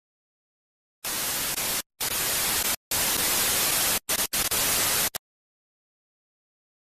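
TV-static hiss as an intro sound effect, in five abrupt bursts with short gaps between them, starting about a second in and cutting off suddenly about five seconds in.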